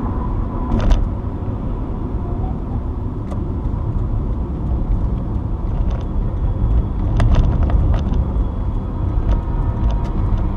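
Steady road and engine rumble inside a moving car's cabin, with scattered small clicks and rattles.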